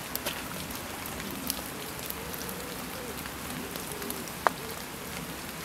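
Steady rain falling on a wet paved path and hail-covered garden beds, with scattered drips and ticks; one sharper tick about four and a half seconds in.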